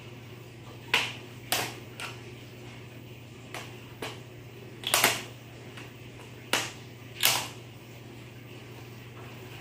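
Sharp plastic clicks and snaps as the keyboard of a Dell Inspiron 3000-series laptop is pried up and its retaining clips release. There are about eight irregular clicks, the loudest a close pair about halfway through and another about three-quarters in.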